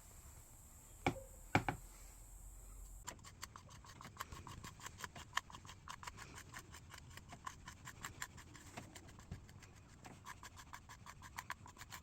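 A carving tool scratching and scraping into clay in quick short strokes, after two sharp knocks about a second in.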